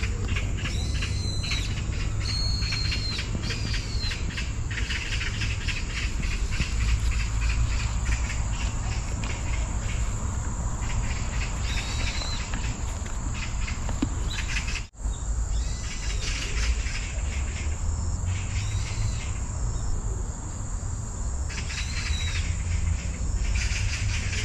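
Insects chirring steadily in summer vegetation, with short bird chirps now and then and a low rumble underneath. The sound drops out for an instant about fifteen seconds in.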